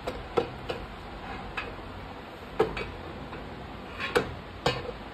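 Irregular sharp knocks and clicks, about seven of them, as the assembled TVS Star Sport engine crankcase is shifted and turned over on a welded steel work stand, metal knocking on metal.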